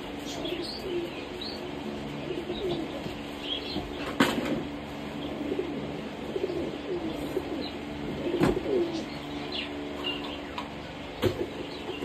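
Small aviary birds, lovebirds and budgies, chirping and calling again and again, with wings flapping. A few sharp knocks cut in, the loudest about four seconds in and others near eight and eleven seconds, over a faint steady low hum.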